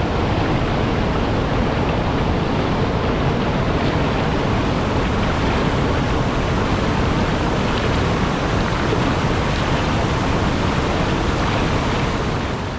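River rapids and a waterfall rushing over rock ledges: a steady, loud wash of water noise that fades out near the end.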